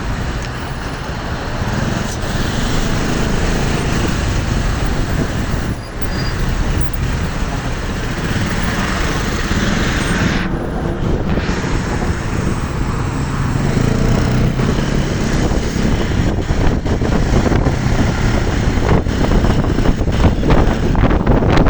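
Wind rushing over the microphone of a moving motorcycle, over the rumble of the bike and road traffic, turning choppier and gustier in the last few seconds.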